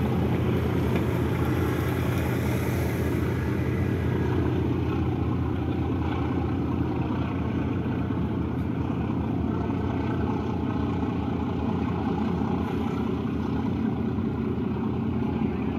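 Car ferry's diesel engines running steadily under way, a low, even drone.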